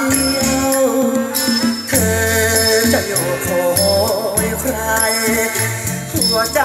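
A song with a steady bass line and bright shaker-like percussion, played back through a pair of Kenwood LS-N550 bookshelf speakers in a speaker test.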